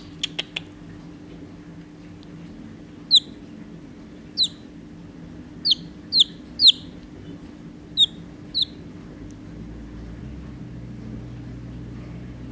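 Two-day-old chick peeping: seven short, high peeps, each falling in pitch, spaced irregularly over several seconds. Three quick clicks sound just at the start, and a low steady hum runs underneath.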